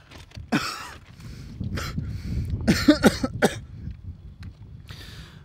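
A man coughing and sputtering in several short rough coughs, most tightly bunched about three seconds in, with a breath near the end, his mouth just freed of a gag.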